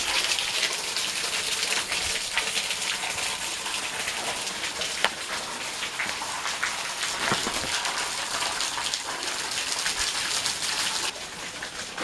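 Water falling and dripping from a wet sandstone overhang onto rock and ice: a steady, rain-like hiss with many separate drops splashing. The sound drops in level about eleven seconds in.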